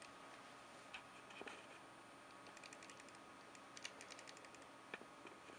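Near silence with a few faint, scattered clicks and light clattering from parts being handled while the paintball marker is unpacked from its case.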